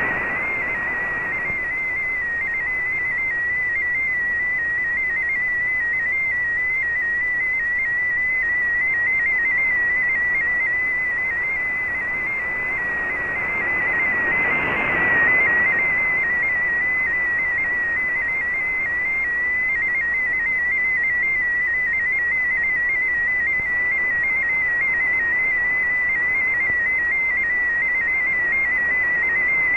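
MFSK16 digital text signal from a shortwave broadcast, heard through an Icom IC-R8600 receiver: a thin warbling tone hopping rapidly around 2 kHz over steady receiver hiss. The hiss swells briefly about halfway through as the signal fades.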